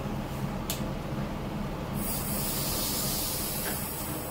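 Steady low drone of the ferry's MWM diesel engine, heard from the wheelhouse. About halfway through, a loud high hiss starts and keeps going.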